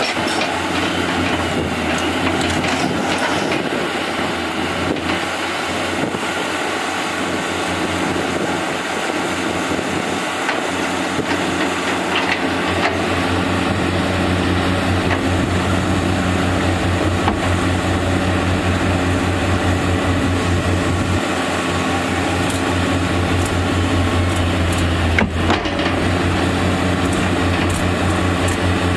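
Caterpillar 320C tracked excavator's diesel engine running steadily under working load as the machine digs soil out of an overturned dump truck's bed, getting somewhat louder about halfway through. A single sharp knock near the end.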